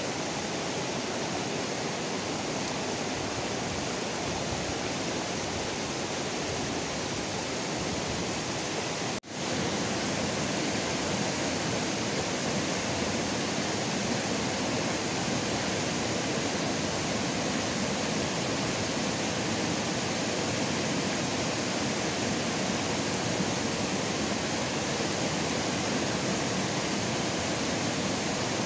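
Rushing river water running over rocks and rapids, a steady hiss. It drops out for an instant about a third of the way through and comes back slightly louder.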